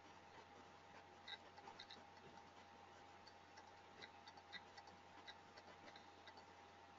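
Near silence: room tone with a faint steady hum and a scattering of faint, irregular ticks.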